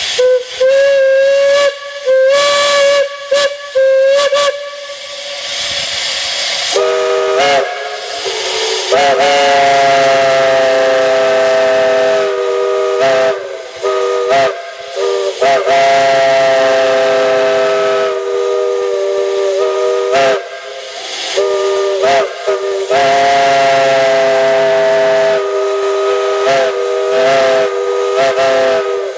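Steam whistles blown at a whistle blow, over a hiss of escaping steam. It starts with a few short single-note toots. From about seven seconds in, a multi-note chime whistle sounds long blasts with short breaks, each sliding up in pitch as it opens.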